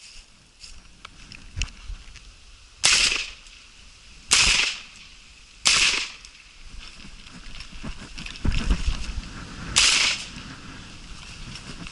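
Four shotgun shots while hunting hooded crows: three about a second and a half apart, then a fourth about four seconds later, each with a short echo. Low rumbling noise on the microphone comes just before the last shot.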